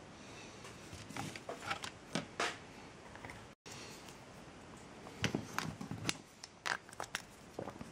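Small clicks, snips and scrapes of hand tools and plastic lamp parts being handled at close range, in two clusters, with the sound cutting out for a moment about halfway.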